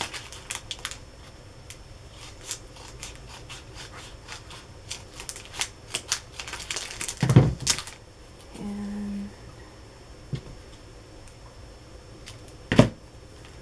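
Scissors snipping a small strip of paper trim, with paper rustling as it is handled: a run of small quick clicks, a louder knock about seven seconds in, and one sharp click near the end.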